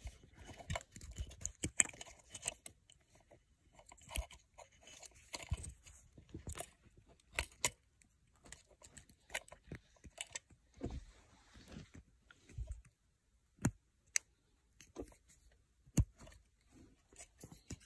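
Plastic wiring-harness connectors and cloth-taped wires being handled: irregular small clicks and rustles, with a few sharper clicks in the second half as the airbag connector's lock is pressed home.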